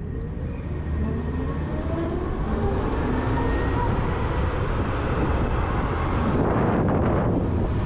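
Zero electric motorcycle riding away and picking up speed: a steady rush of wind and road noise on the camera microphone that grows louder in the first second, with a faint rising whine from the electric drive.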